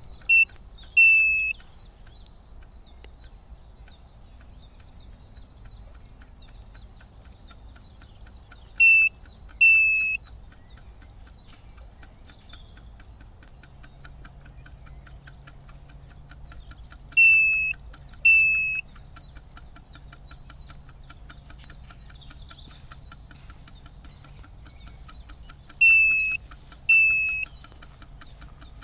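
Lucky FF918-C fish finder beeping: two short high beeps about a second apart, repeated four times roughly every eight to nine seconds. A faint, fast ticking runs underneath.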